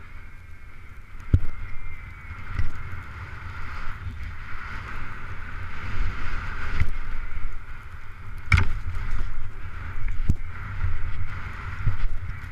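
Skis sliding and scraping over packed snow, a steady hiss with wind buffeting the microphone, broken by a handful of sharp knocks as the skis hit bumps, the loudest about two-thirds of the way through.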